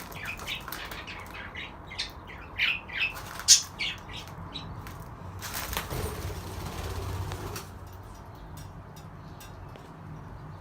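Budgerigars chirping in short rapid calls, one sharp squawk about three and a half seconds in, then a rush of wing flapping for about two seconds past the middle before the chirping goes quieter.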